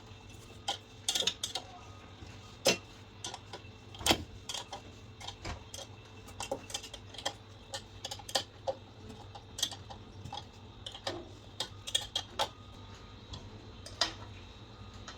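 Irregular sharp metal clicks and taps of bolts and a hand tool as the stator of a direct-drive washing machine motor is bolted back in place, the loudest about four seconds in.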